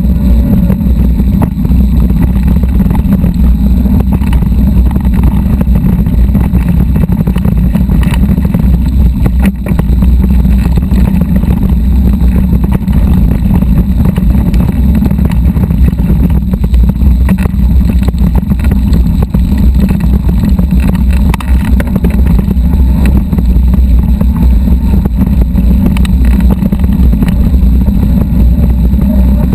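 Loud, steady low rumble of wind buffeting the microphone and a mountain bike rolling and rattling over a dirt and gravel desert trail.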